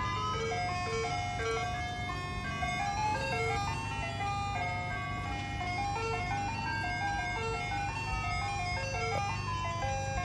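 Soft serve ice cream truck's loudspeaker playing its jingle, a melody of clean electronic chime-like notes, over a steady low engine hum.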